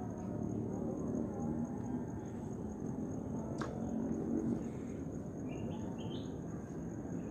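Insects trilling steadily at a high pitch, with a single sharp click about three and a half seconds in and a few short chirps near the end.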